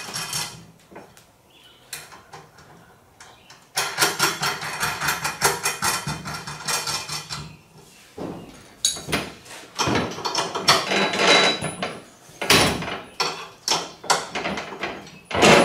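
Nuts and bolts being fitted and tightened on a steel frame. There are two stretches of rapid, even clicking, the first right at the start and the second from about four seconds in. After that come scattered metallic clinks and knocks as parts and hardware are handled.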